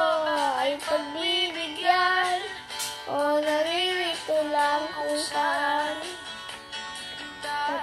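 A young boy singing a slow song, holding long notes that waver and bend in pitch.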